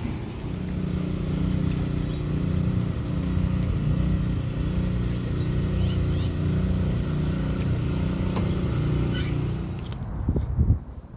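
An engine running steadily at an even speed, a low hum that stops shortly before the end, just after a brief loud thump.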